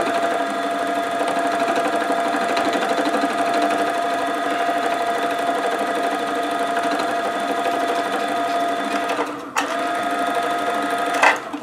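Simplicity 12-needle felting machine running steadily, its needles punching wool into the batting. It falters briefly with a knock a little after nine seconds in, runs on, then stops with a click near the end.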